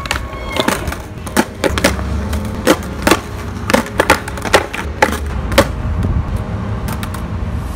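Skateboard on concrete during heelflip attempts: a string of sharp wooden clacks as the tail pops and the board slaps down on the ground, over the low rumble of rolling wheels.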